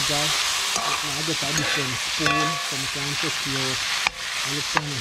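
Scallion, onion, tomato and sweet pepper sizzling in oil in a cast-iron frying pan while being stirred with a metal slotted spoon that scrapes the pan. There is one ringing clink of the spoon on the pan about two seconds in and two sharp knocks near the end, over a low voice in the background.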